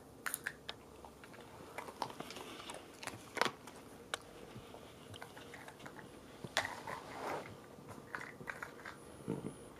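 A Cavalier King Charles Spaniel crunching and chewing small dog treats while nosing over little plastic shot-glass cups, with irregular sharp clicks and taps as the cups tip.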